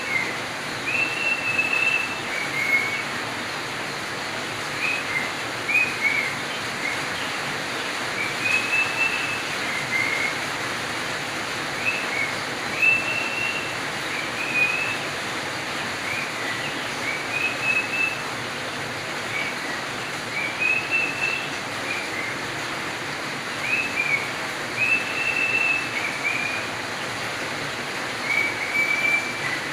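Budgerigar whistling: short clear notes and quick pitch slides, a few every couple of seconds, over a steady hiss.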